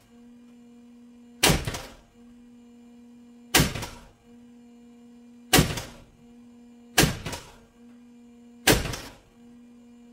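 Five short, loud clunks spaced about one and a half to two seconds apart: the starter of a Mercedes M272 V6 bumped in brief bursts, snapping the crankshaft against a breaker bar braced on the chassis to try to crack loose a very tight crankshaft pulley bolt. A steady hum runs in the gaps between them.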